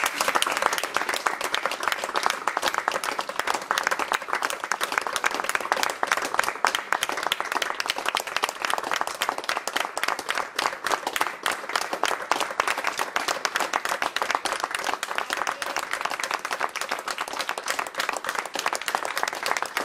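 Audience applauding, many hands clapping together steadily.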